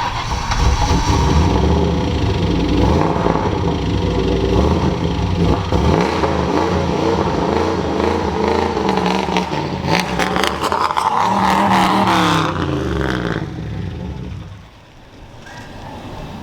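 Turbocharged Ford 4.6L 2V V8 running and being revved up and down in short bursts. The engine is hurt, which the owner takes for bent rods or damaged piston rings with rod knock. It drops much quieter about fourteen seconds in.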